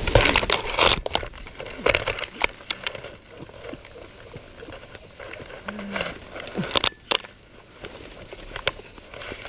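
Paraglider landing into bushes and a tree: a loud burst of rustling and breaking twigs in the first second, then scattered twig snaps, leaf rustles and clicks from the harness and lines among the branches, over a steady high hiss.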